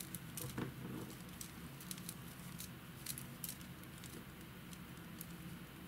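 Metal knitting needles clicking and yarn rustling as stitches are knit by hand: light, irregular ticks, several a second, over a faint low hum.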